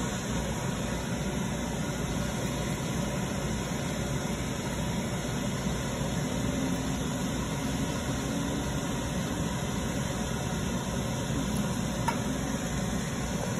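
Steady rushing noise with a low hum from the gas range and its ventilation, with a single light click about twelve seconds in.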